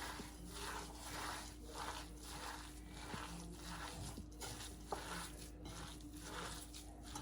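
Seasoned chicken mince with bread crumbs being mixed in a bowl: a steady run of soft, squelching strokes at about two a second, with one light click about five seconds in.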